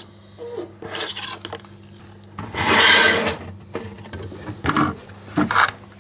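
Metal marquee letters being slid and shuffled on a countertop: irregular scraping and rubbing with light clinks, the longest and loudest scrape about three seconds in.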